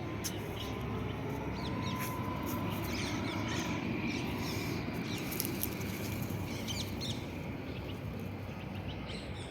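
Birds chirping in short, high calls scattered throughout, over a steady low background rumble.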